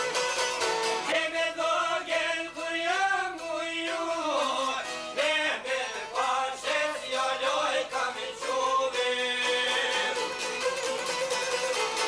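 Albanian folk song: a man sings over a plucked çifteli and a round-bodied lute, with a violin playing along. The voice drops out near the end, leaving the instruments.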